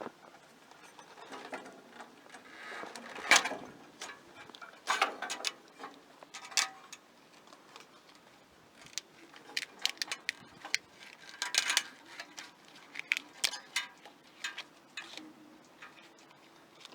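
Hands handling the ignition coil and its wires on a small engine: irregular clicks, taps and knocks of metal and plastic parts with some rustling, the loudest knock about three seconds in.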